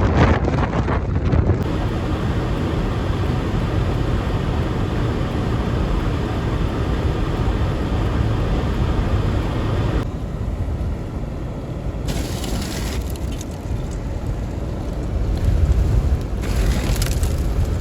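Strong wind from a snowstorm blowing across the microphone, a steady low rumbling noise that eases slightly about ten seconds in.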